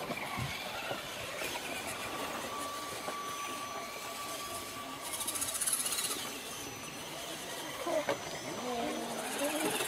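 Radio-controlled scale crawler's electric motor and gearbox whining as it climbs a dirt slope, with a steady whine for a couple of seconds and a brief hissy surge about halfway through.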